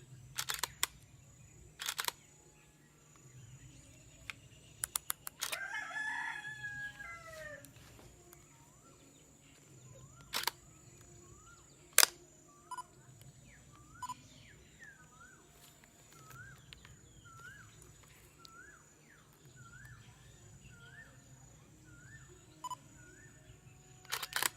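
Sharp mechanical clicks from a Nikon D3400 DSLR as its lens is refitted and the shutter is fired again to test the freed mirror, the loudest single click about twelve seconds in and a quick pair near the end. A rooster crows once about five seconds in, and a small bird then calls with short rising notes about once a second.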